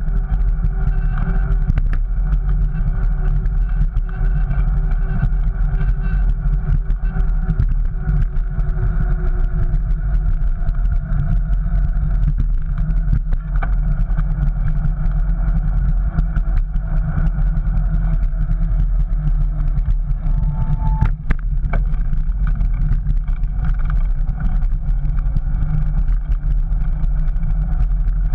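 Riding a bicycle over paving stones, heard through an action camera's microphone: a steady low rumble of wind and tyres, with many small clicks and rattles from bumps in the path.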